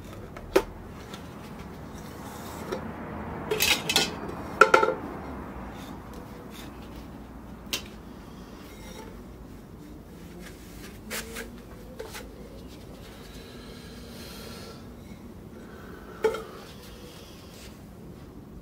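Metal parts of a Ricoh IM C copier fuser unit clinking and clattering as the fuser belt assembly is taken apart by hand. The loudest clattering comes around four to five seconds in, with single clicks and knocks scattered through the rest.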